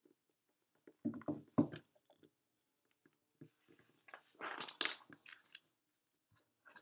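Plastic molecular model kit pieces being handled and fitted together: short clicks and scrapes as connector sticks are pushed into the ball pieces, in a burst about a second in and a longer one around four to five seconds in.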